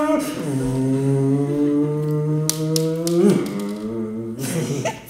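A person's voice making a vocal sound effect: a long, steady, low humming drone held for about three seconds, then breaking off into shorter sliding hums near the end.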